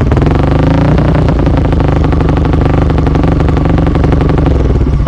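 Modified Yamaha Exciter 65+4 big-bore single-cylinder four-stroke engine revving through an aftermarket exhaust, held at steady high revs, then dropping back about four and a half seconds in. The exhaust is very loud.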